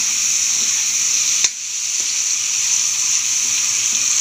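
Pork, shrimp, garlic and onion sizzling steadily in hot oil in a metal wok, with a few light clicks and one sharp click about a second and a half in.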